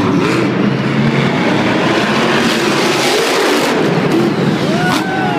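Monster truck's supercharged V8 running hard at high revs, loud and continuous, as the truck launches over a dirt jump.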